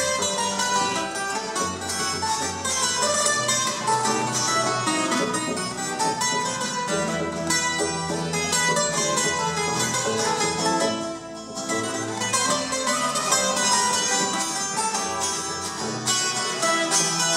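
Colombian Andean string music played live: tiples plucked in fast, bright runs over a double bass line, with a brief drop in loudness about eleven seconds in.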